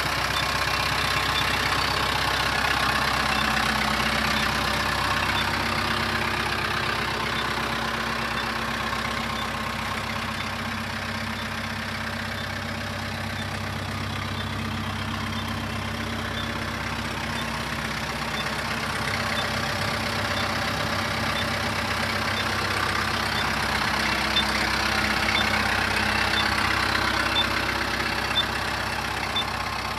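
Kubota M7060 tractor's four-cylinder turbo diesel engine idling steadily.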